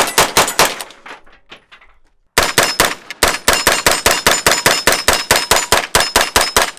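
A 9mm AR-style pistol fired in rapid semi-automatic strings, about five shots a second. One string ends about a second in, and a second string starts about two and a half seconds in and stops just before the end. The second string ends in a malfunction: the bolt does not lock open on the last round.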